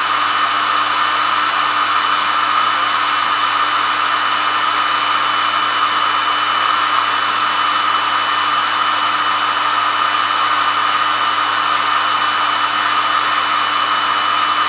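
Hair dryer running continuously at a steady speed: an even rush of air with a constant motor whine.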